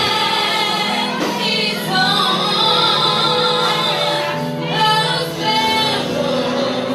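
A young girl singing a gospel song into a microphone, holding long notes with a few brief breaths between phrases.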